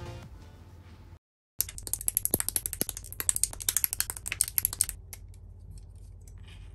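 Plastic model-kit (Gunpla) parts being pressed and snapped together by hand: a quick run of many sharp plastic clicks lasting about three seconds, starting after a short gap near the start.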